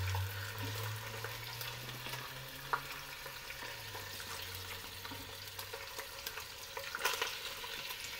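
Chicken pieces frying skin side down in hot oil in a Dutch oven: a steady sizzle with scattered crackles and pops as the skin browns. A low hum underneath fades out around the middle.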